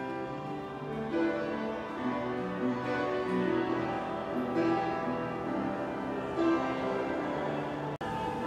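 Background music: a melody of separate held notes, with a momentary break near the end.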